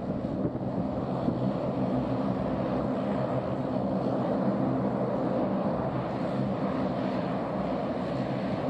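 De Havilland Canada Dash 8 Q400's turboprop engines running steadily at low power on the ground: an even drone with a low propeller hum.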